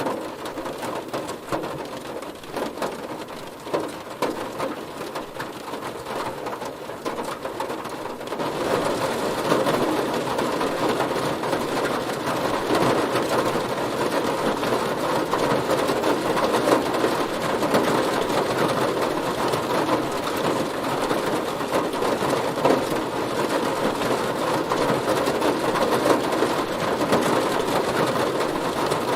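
Heavy rain drumming on a car's body, a dense steady patter that grows heavier and louder about eight seconds in.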